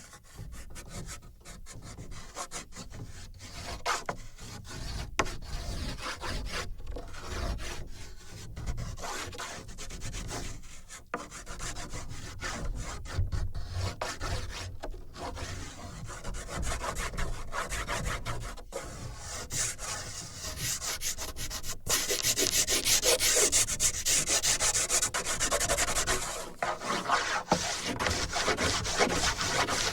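A drawing tool rubbing and scratching across paper on a wooden board, picked up by contact sensors in the board. The strokes run almost continuously with many brief breaks, and they grow louder and harsher about two-thirds of the way through as the pressure rises.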